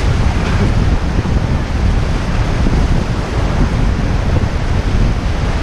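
Rushing Ganges river water, loud and steady, with heavy wind buffeting on the microphone.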